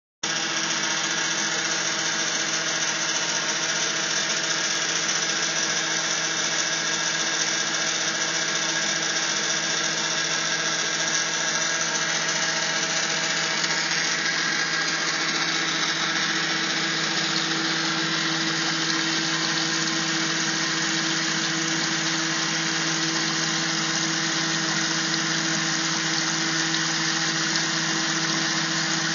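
Electric pump running with a steady hum while water sprays from a perforated PVC pipe and falls in a curtain, splashing continuously.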